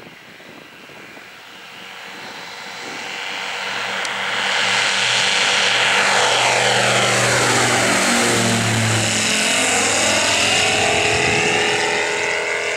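Che-29 amphibian's twin Rotax 912 piston engines and propellers at takeoff power, growing steadily louder over several seconds as the plane approaches. The engine pitch drops as it passes by.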